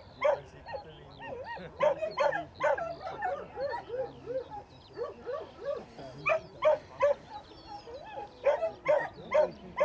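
A dog barking over and over, two or three barks a second with short pauses between runs.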